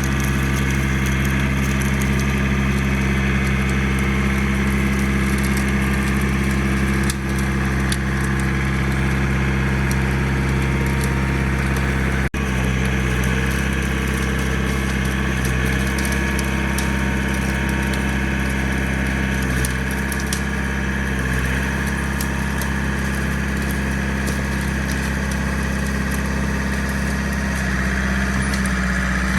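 John Deere 4700 compact tractor's diesel engine running at a steady speed while working a backhoe.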